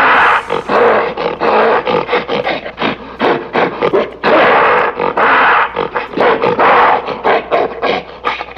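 A big cat roaring in repeated rough, raspy calls, several loud spells of about a second each with short gaps between.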